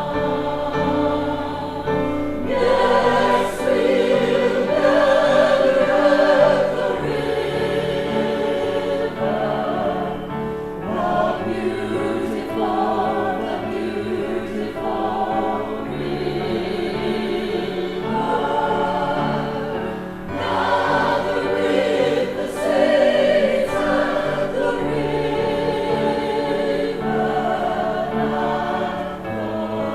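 Church choir singing in sustained phrases that swell and ease, loudest a few seconds in and again past the twenty-second mark.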